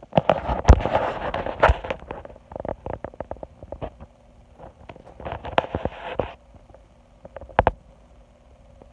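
Close rustling and scraping of crumpled paper bedding in a hamster cage, in two bursts, with many sharp clicks and knocks against the plastic cage.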